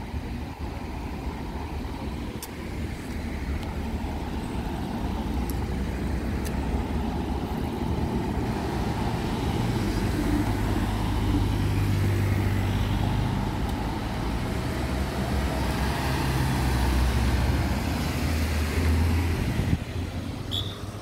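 Motorcade cars driving past one after another without sirens: engine and tyre noise rising and falling as each car goes by, loudest in the middle and again near the end.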